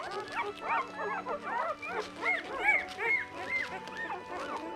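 A litter of nine-day-old Miniature Australian Cattle Dog puppies squeaking and whimpering over one another, many short rising-and-falling squeals overlapping every second.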